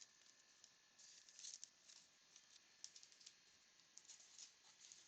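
Faint, scattered clicks and rustles of baseball cards being handled and stacked, in short clusters.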